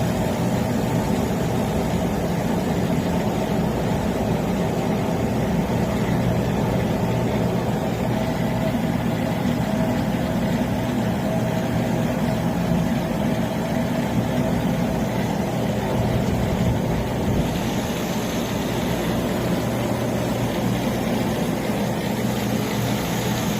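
Upright commercial freezer's refrigeration unit running: a steady mechanical hum with a constant low drone.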